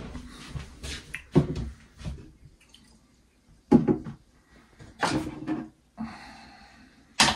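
A few separate knocks and clatters of things being handled, ending in a sharp clack near the end, with a short steady hiss about six seconds in.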